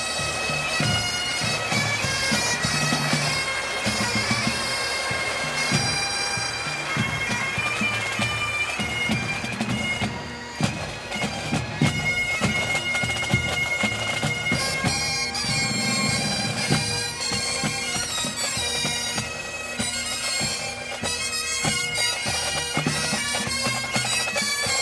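Breton pipe band (bagad) playing a tune: bagpipes over a steady drone, with a moving melody line above.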